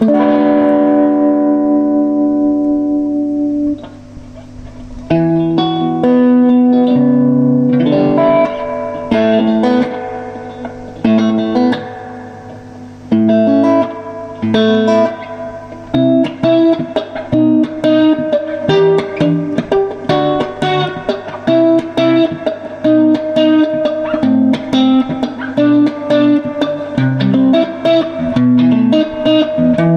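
Electric guitar played through a 1975 Roland CA-40 combo amplifier. A chord is struck and left to ring for about four seconds, then single notes and short chords follow, and from about midway a fast run of picked notes.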